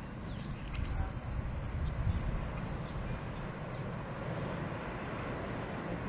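A whale's blow heard across the water: a breathy whoosh of exhaled air swelling about one to two seconds in, over a steady low rush of wind and sea.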